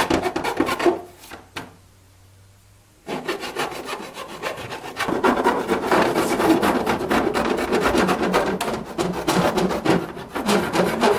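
Hand file rasping in rapid strokes along the trimmed edge of a plastic Jeep Wrangler OEM fender flare, smoothing off uneven cuts and loose bits. The filing stops for about two seconds, starting about a second in, then starts again.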